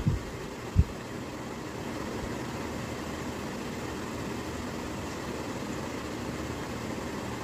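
Steady background hum and hiss, like a room fan or air conditioner running, with one brief low thump just under a second in.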